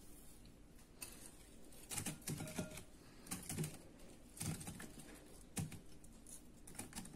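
Chunks of apple and banana tipped into a glass bowl of fried potato pieces: faint soft taps and clicks as they land, in several small clusters about a second apart.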